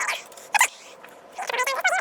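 A domestic cat meowing, two or three short, rising-and-falling meows.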